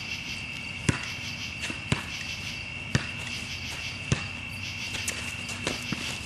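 Basketball being dribbled on a hard court: four loud bounces about a second apart, then fainter ones. Underneath runs a steady high chorus of crickets.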